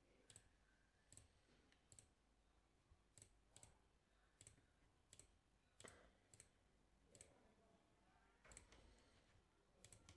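About a dozen faint computer mouse clicks, irregularly spaced, as drop-down menu items and dialog buttons are selected.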